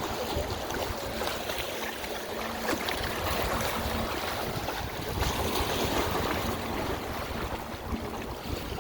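Wind buffeting the microphone with a steady low rumble, over Lake Michigan waves washing onto the shore.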